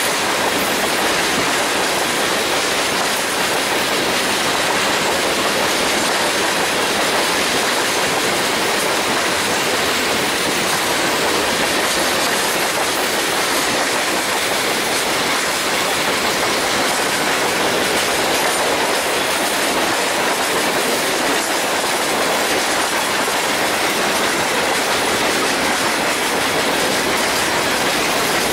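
Tank cars of a long freight train rolling steadily past, their steel wheels running on the rails in an unbroken, even wash of noise.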